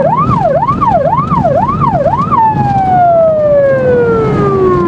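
Police patrol car siren going up and down about twice a second, then switching a little over two seconds in to one long slowly falling tone, over the car's engine and road noise.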